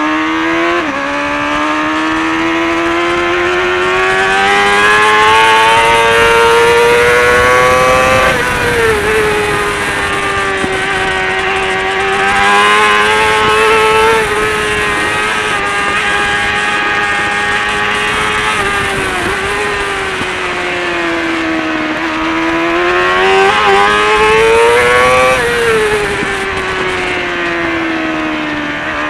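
Kawasaki ZXR400's inline-four engine at racing speed, heard from the bike itself. The note climbs for several seconds and drops sharply at a gear change about eight seconds in. It then holds fairly steady, climbs again and falls away near the end.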